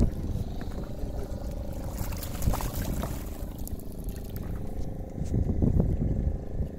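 Sea water sloshing and trickling against the hull of a small fishing boat, over a steady low hum and rumbling wind on the microphone.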